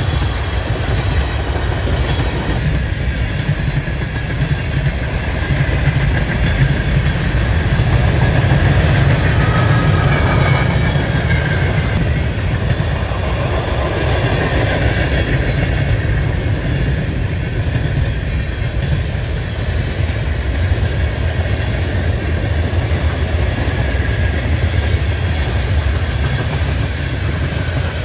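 Freight train cars rolling past on the track, a steady loud low rumble throughout.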